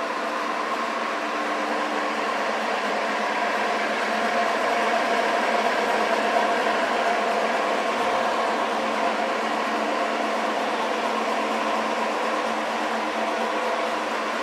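Flat-die animal feed pellet mill running empty on its electric motor, before any feed is added: a steady mechanical hum carrying several steady tones.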